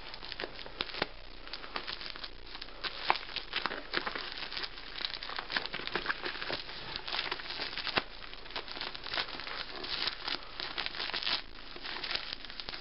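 Mailing package and bubble wrap being unwrapped by hand: irregular crinkling and crackling of plastic packaging.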